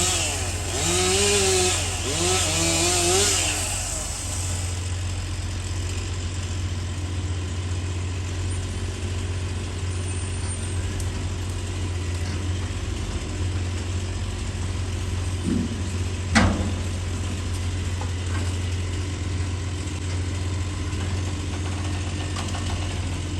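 A small engine running steadily, revving up and down a few times in the first four seconds, then holding an even drone; a single sharp knock about two-thirds of the way through.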